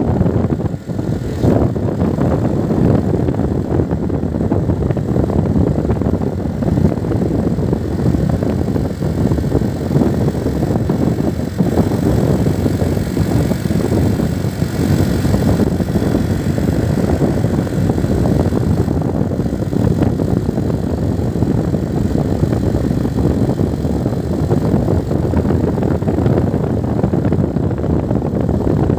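Steady engine and road noise of a moving vehicle, with wind rumbling on the microphone.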